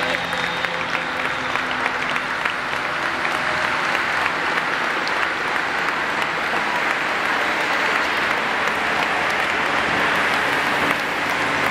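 Roadside crowd clapping steadily as a pack of racing cyclists passes.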